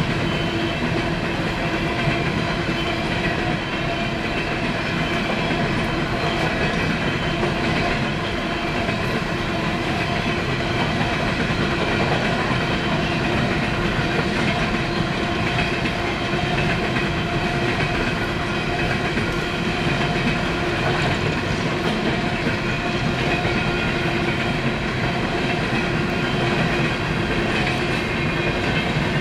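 Empty steel coal hopper cars of a freight train rolling steadily past, wheels running on the rails with a steady ringing tone in the noise.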